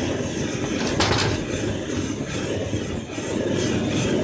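Handheld gas torch flame blowing into a metal bucket with flames burning inside it, a steady low rushing noise, while the old brake-shoe lining is burned off. A brief louder hiss about a second in.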